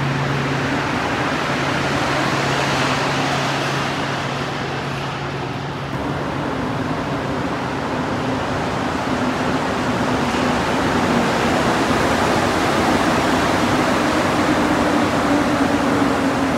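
Steady rumble and hum of a rubber-tyred Montreal metro train and station ventilation. A low hum changes to a higher one about six seconds in, which strengthens slightly near the end.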